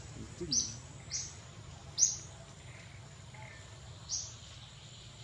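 A bird giving short, sharp falling chirps, four times over a few seconds, the third the loudest. A faint steady high whine runs underneath.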